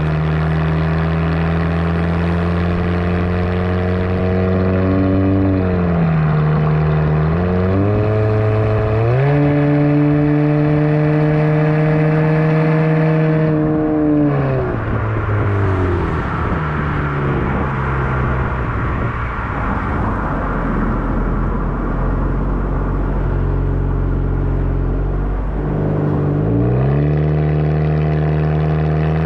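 Kia Rondo exhaust heard close to the tailpipe while driving: a steady engine drone whose pitch dips and climbs back about seven seconds in. About fourteen seconds in the pitch falls away to a lower, rougher running with tyre and road noise, and near the end it rises again as the car accelerates.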